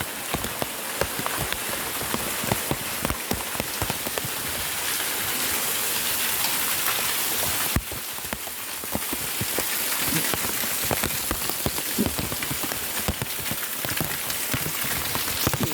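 Heavy rain falling: a steady hiss full of separate drop hits on hard surfaces and standing water. The level dips briefly about eight seconds in.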